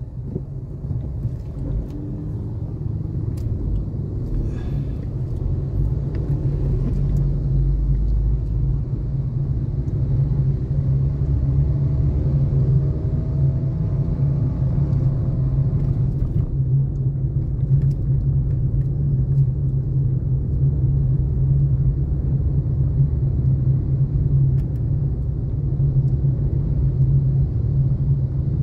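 Steady low rumble of a vehicle driving through city traffic: engine and road noise heard from the moving vehicle.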